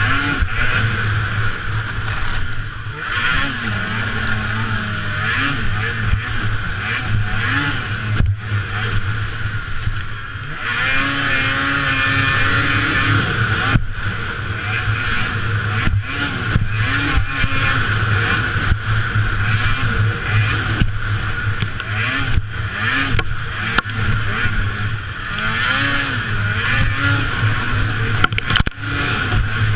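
Racing snowmobile engine running hard, its pitch rising and falling again and again as the throttle is worked, heard from a helmet-mounted camera.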